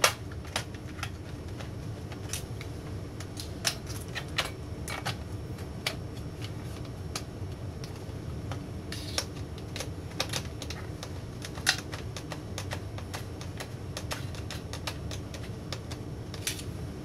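Irregular light metallic clicks and taps from a screwdriver and small screws working against the sheet-metal heat shield and chassis of an opened LCD monitor, a few sharper than the rest, over a faint steady hum.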